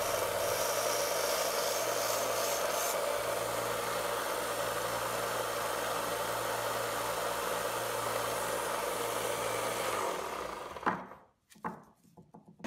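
Grizzly 1-inch belt sander running with a redheart wood block pressed against its belt, a steady sanding hiss over the motor's low hum. The sound stops about ten seconds in.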